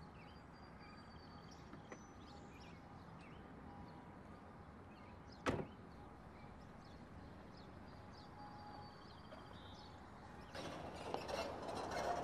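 A car door shuts once with a thud about five and a half seconds in, over faint birdsong. Near the end a louder rolling, crackling noise builds as vehicles pull in on gravel.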